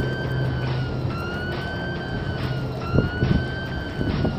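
A high siren-like tone rising and falling about once a second over a steady low hum, with a few low bumps in the last second and a half.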